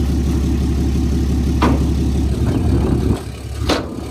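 A truck engine idling steadily, with two sharp knocks from the trailer's steel ramps being handled, one before the middle and one near the end. The idle cuts off about three seconds in.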